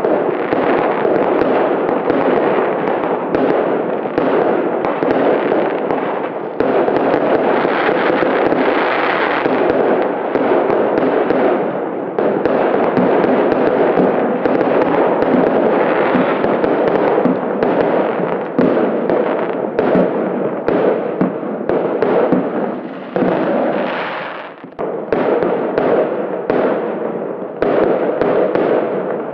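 Fireworks going off in a dense, unbroken run of bangs and crackles. There is a brief lull shortly before the end, then they pick up again.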